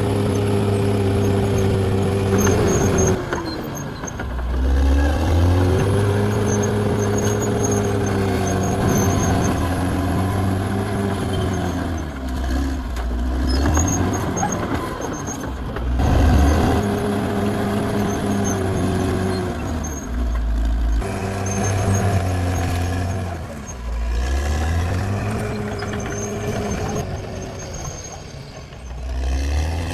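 Caterpillar D6R XL bulldozer's diesel engine working under load, its pitch swelling up and sagging back down again and again every five or six seconds as it pushes and then eases off.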